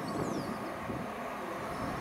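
A train running through the station, a steady rumble.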